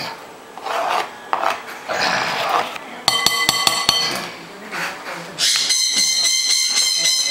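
A kitchen knife scrapes chopped onion off a plastic cutting board into a glass bowl, with rapid ringing taps of the knife against the bowl, once about three seconds in and again for the last two seconds.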